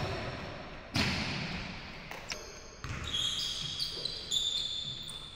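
Basketball bouncing on a hardwood gym floor, two sharp echoing bounces in the first second, then sneakers squeaking on the hardwood several times in the second half.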